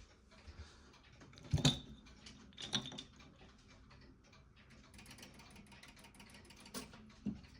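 A few scattered clicks and knocks over faint room noise, with a patch of quick faint ticks late on.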